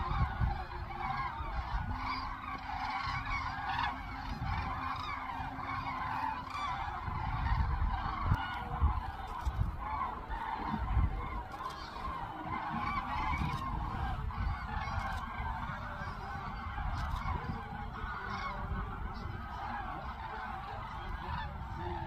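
A flock of common cranes calling in flight, many trumpeting calls overlapping continuously, over a low rumble.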